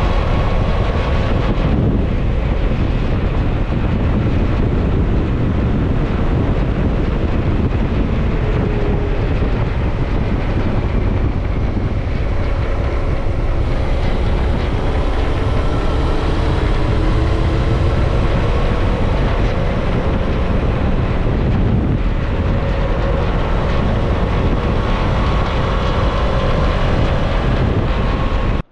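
Suzuki V-Strom 650 XT's 645 cc V-twin engine running at road speed, its pitch rising and falling through the bends, mixed with heavy wind rumble on the microphone.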